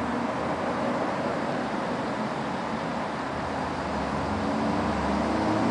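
Cabin sound of a 1996 Scania CN113CLL city bus: its 11-litre six-cylinder diesel runs at idle as a steady low drone. It gets slightly louder near the end.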